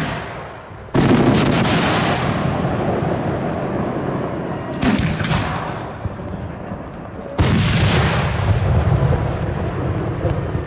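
Three loud bangs from a consumer firework battery (cake) firing shots into the sky, at about one, five and seven and a half seconds in. Each bang is followed by several seconds of fading crackling noise.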